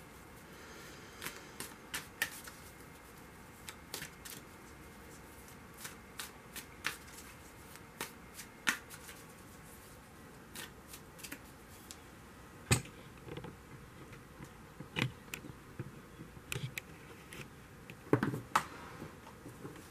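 Tarot deck being shuffled by hand: soft, irregular card flicks and taps, with one sharper tap about two-thirds of the way through and a quick flurry near the end.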